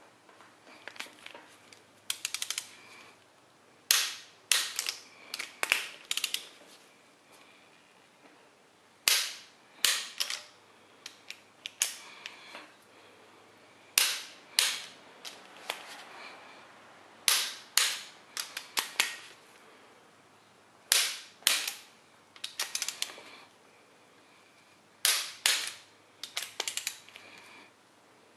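Click-type torque wrench on cylinder head bolts: a sharp click and a few smaller ratchet clicks in a cluster every three to four seconds, as each bolt is pulled to 70 ft-lb on the final torque pass.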